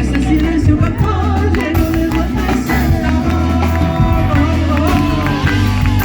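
Live music: a singer's voice carrying a melody over guitar and a steady bass.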